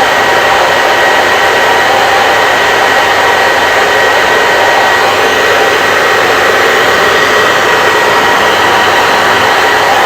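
Hair dryer running steadily: a loud, even rushing of air with a faint high motor whine.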